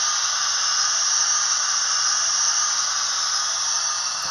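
Hornby A4 'Sparrowhawk' OO gauge model's DCC sound decoder playing a steady steam hiss, the simmering sound of a standing steam locomotive.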